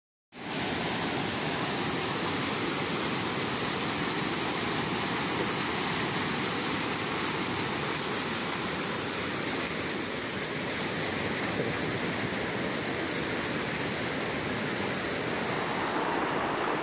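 Steady rush of whitewater pouring over a waterfall and churning in the pool below, fading in about half a second in.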